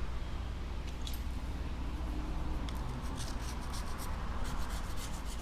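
A small tool scraping and picking along the edge of an iPad Air's frame, a run of light scratches and ticks that thicken in the second half, clearing leftover shards of the broken glass before new adhesive goes on. A steady low hum runs underneath.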